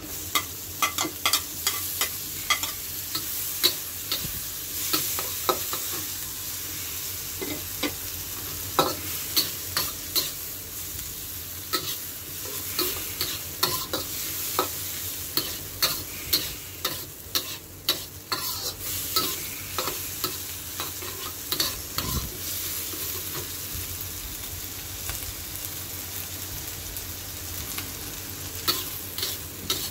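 Diced onion and garlic sizzling in margarine in a wok, with a metal spatula stirring, scraping and clicking against the pan at an irregular pace. The clicks thin out for a while after the middle and pick up again near the end.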